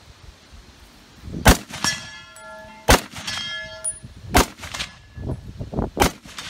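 Four shots from an M1 Garand rifle in .30-06, each followed a fraction of a second later by the clang of the bullet striking a steel gong target; after the first two hits the gong rings on in several clear tones. Wind rumbles on the microphone throughout.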